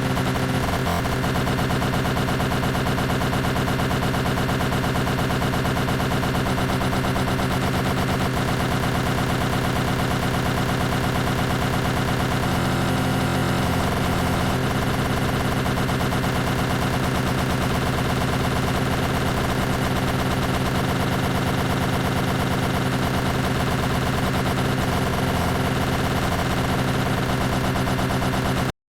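Greenworks 40V cordless lawn mower running steadily with a fast, even rattling pulse. It cuts off abruptly near the end.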